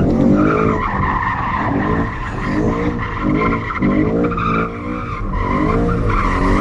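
BMW M3 E92's naturally aspirated 4.0-litre V8 revving hard, the revs swinging up and down about once a second, with the rear tyres squealing steadily as the car drifts in circles, heard from inside the cabin.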